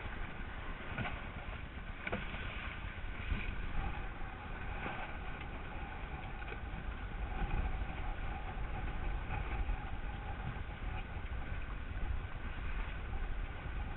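Wind buffeting the microphone and water rushing past the hull of a small trimaran under way, a steady rumbling wash with a faint steady hum over it.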